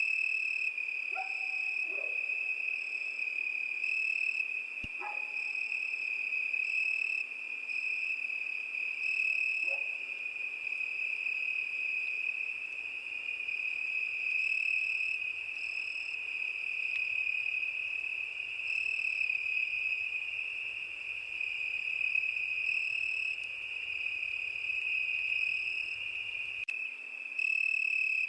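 Crickets singing in a continuous high trill, with a few short, lower calls in the first ten seconds or so.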